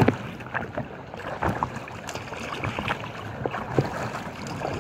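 Choppy waves splashing and slapping against an inflatable kayak under way: a string of short, irregular splashes over a steady wash of water.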